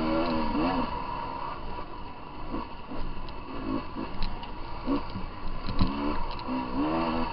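Dirt bike engine revving up and down in repeated short surges as it is ridden hard over rough trail, with scattered sharp clicks and knocks.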